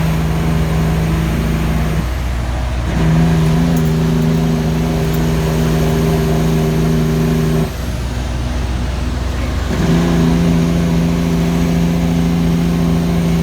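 Kenworth T800 truck's diesel engine droning steadily on the engine brake while coasting downhill. The drone cuts out for about a second, two seconds in, and again for about two seconds past the middle.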